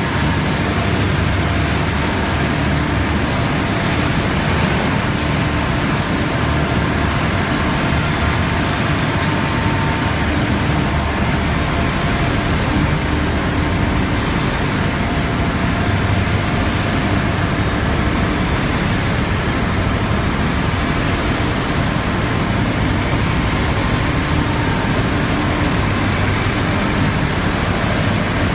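Textile-waste recycling machinery running: a wide cotton-waste opening, cleaning and carding line making a steady, loud mechanical noise with a few faint steady hums in it.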